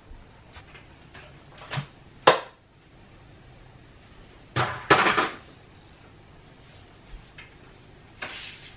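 Broom sweeping a kitchen floor with a dustpan: light brushing strokes and small clicks, a sharp knock a little after two seconds in, and a longer scraping sweep around five seconds.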